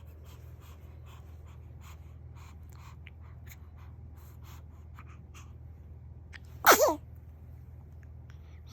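A baby under a year old sneezing once, a short sharp sneeze about two-thirds of the way through.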